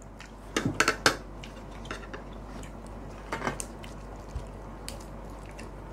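Metal fork and spoon clinking against serving plates: a quick run of clinks about half a second to a second in, and a few more a little after three seconds.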